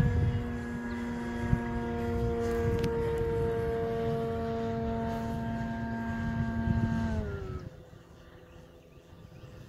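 Large electric RC plane's brushless outrunner motor and propeller droning overhead in one steady tone, which glides down in pitch and fades about seven seconds in.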